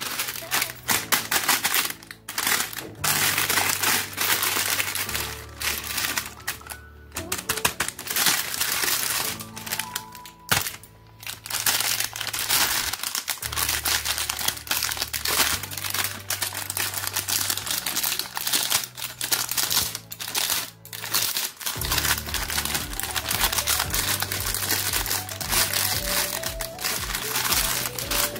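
Plastic candy wrappers and the cellophane overwrap of a tray of chocolate bars crinkling and crackling as hands handle them, over background music with a stepping bass line.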